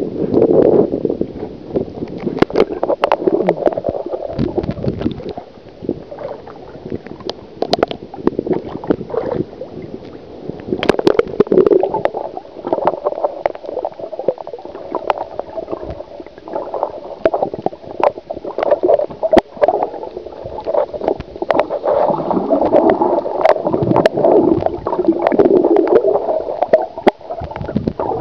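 Muffled gurgling and sloshing of seawater heard through a compact camera held underwater, swelling and fading unevenly, with many sharp clicks scattered through it.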